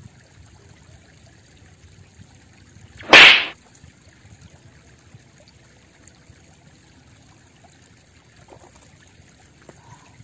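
One loud, sharp swish about three seconds in, lasting under half a second, as the long fishing pole is jerked upward. Around it is a faint, steady wash of river noise.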